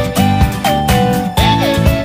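Background music: a melody that glides between notes over a bass line and a steady beat.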